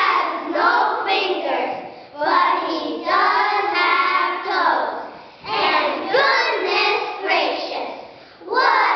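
A class of young children reciting a poem together in a sing-song chant, in short phrases with brief pauses between them.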